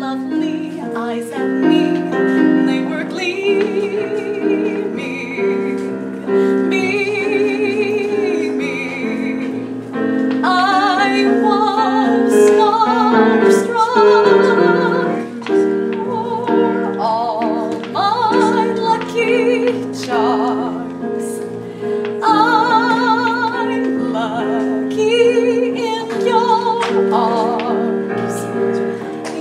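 Singing with piano accompaniment, a show tune with held notes sung with wide vibrato.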